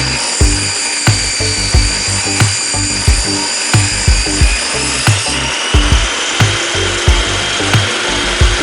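Table saw ripping a live-edge board lengthwise, its blade whining steadily and dropping in pitch about five seconds in. Background music with a steady beat plays under it.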